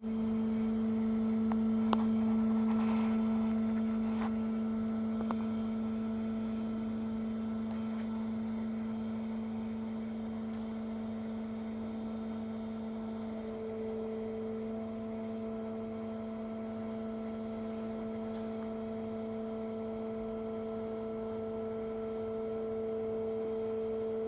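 Tilt table's hydraulic drive humming with one steady pitched tone as the platform slowly tilts the tracked vehicle over, with a few faint ticks now and then.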